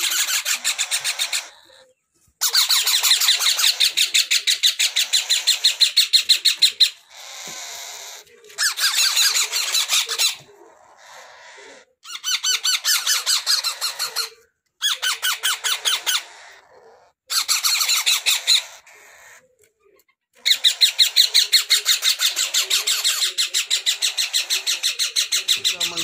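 A group of month-old parrot chicks giving rapid, evenly pulsed begging calls in bursts of a few seconds, with short pauses between bursts.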